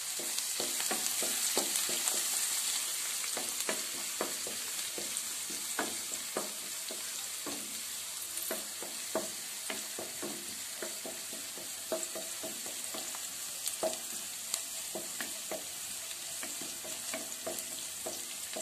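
Chopped shallots and curry leaves sizzling in hot oil in a non-stick pan as they fry to brown. A wooden spatula stirs them, scraping and tapping the pan in many short, irregular clicks over the steady sizzle.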